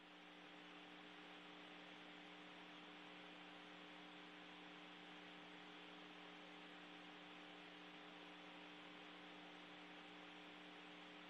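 Near silence: a faint, steady hum of several low tones over a light hiss, unchanging throughout.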